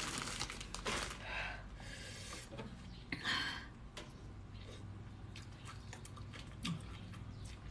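A person eating papaya salad (som tam): a forkful taken into the mouth and chewed, with a couple of short hissing mouth sounds and a few small clicks.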